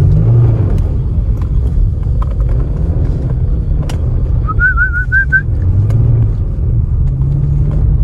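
Low rumble of a Kia Stinger's engine and tyres on snow, heard from inside the cabin as the car slides sideways. The engine note swells briefly a few times. About halfway through comes a short wavering whistle-like tone.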